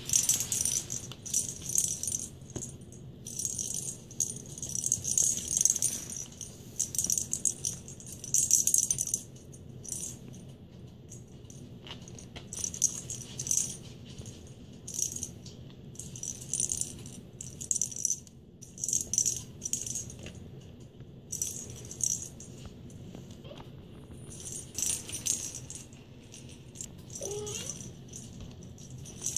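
Dangling blue plastic cat-toy ball jingling and rattling in repeated short bursts as kittens swat it, with brief pauses between.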